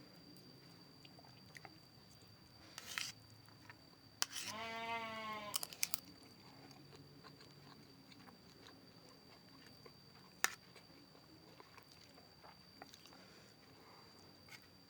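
A goat bleats once, a single drawn-out call of just over a second, about four seconds in. Around it come quiet chewing with occasional crunches and sharp mouth clicks.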